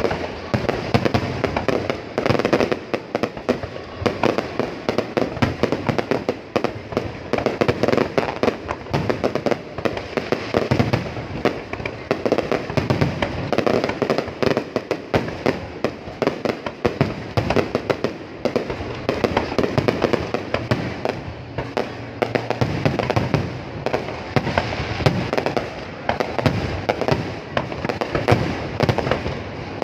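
Fireworks display: a dense, continuous barrage of bangs and crackles with no let-up.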